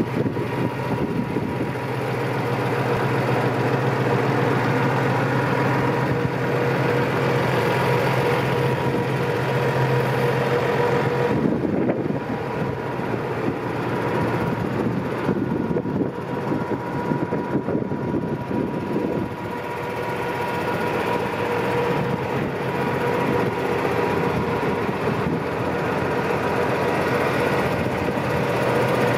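Case International 1255XL tractor's diesel engine idling steadily, its sound turning rougher for several seconds around the middle.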